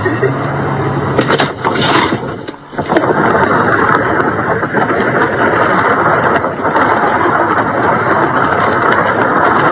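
Loud, rough noise heard inside a car as it drives into a cyclist. Sharp cracks and knocks come a little over a second in, where the car strikes the bicycle and rider. A steady rushing roar of the car driving on follows.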